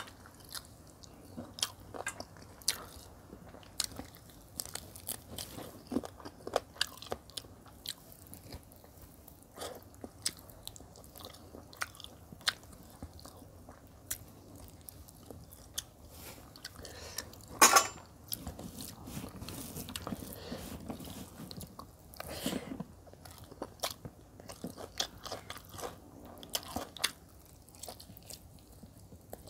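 Close-miked eating sounds: chewing and lip smacking of chicken curry and rice, with many small wet clicks and one louder mouth sound about eighteen seconds in.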